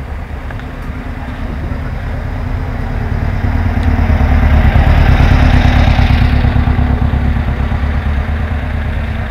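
A vehicle engine running at a steady speed, growing louder to a peak about halfway through and then fading.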